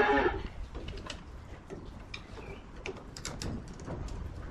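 Spanners clicking and scraping on plastic water-pipe fittings as they are tightened: a run of irregular sharp clicks and ticks. A cow's moo trails off just at the start.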